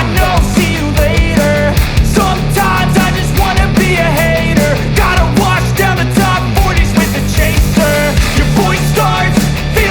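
Loud rock-style music with a steady beat and sung or rapped vocals over a heavy bass line.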